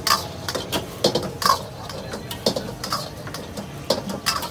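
Metal spatula clanking and scraping against a wok while stir-frying chicken, in quick irregular strokes with a short pause about two seconds in.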